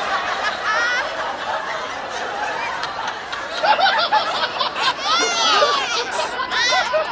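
Laughter from several people, overlapping at first and breaking into distinct, louder laughs about halfway through.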